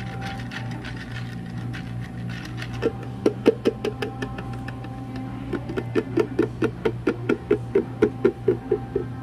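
A few irregular knocks about three seconds in, then rapid regular knocking of about five a second from a little past halfway, over a steady low hum.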